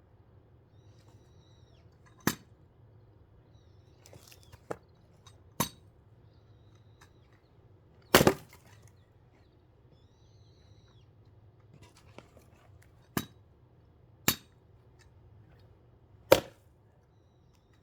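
Heavy blows splitting thick firewood logs: seven sharp strikes at uneven intervals, the loudest about eight seconds in.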